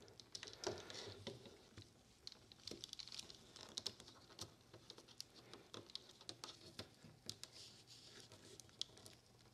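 Faint, scattered clicks and small scrapes as a 3D-printed PLA forming die is pushed by hand into a bent sheet-metal window channel, plastic grinding against the steel as it is forced in and works the channel back open.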